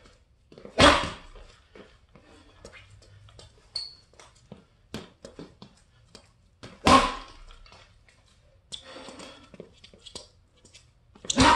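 Boxing gloves punching a hanging heavy bag in three loud combinations, about one every five seconds, each a quick run of hits. Light scuffs and taps from footwork come in between.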